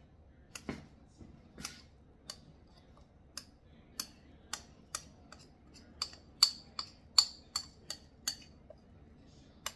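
Metal fork clinking and scraping against a small ceramic bowl while sourdough starter is scraped out, an irregular string of sharp clinks that comes faster in the second half.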